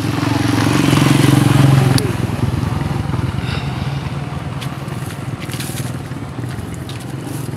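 A motor engine running steadily, louder for the first two seconds, with rustling and a few sharp clicks of handling close by.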